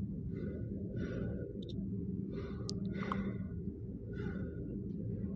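Steady low hum under about five soft, short breath-like puffs, with one faint click about halfway through.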